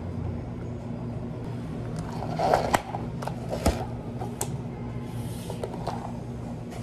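Clear plastic dome lids pressed onto two plastic iced-coffee cups: a few sharp plastic clicks with some crinkling about two to four and a half seconds in, over a steady low hum.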